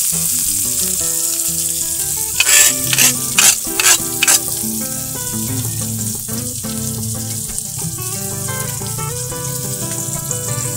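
Frogs, eggplant, sambal and lemon-basil leaves sizzling steadily in a wok over a wood fire, with five short harsh scrapes about two and a half to four and a half seconds in. Background music plays throughout.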